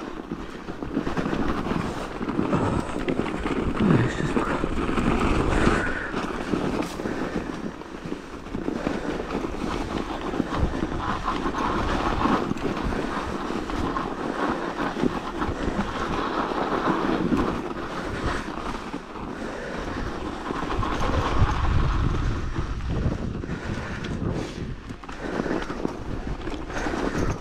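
Mountain bike riding down a snowy forest trail: a continuous rumble of tyres rolling over packed snow, with frequent small clicks and rattles from the bike and wind buffeting the helmet-camera microphone.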